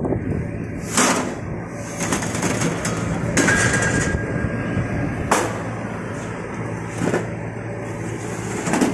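Gantry-type spot welding machine running: a steady electrical hum with a sharp crack about every two seconds as it works through the welds.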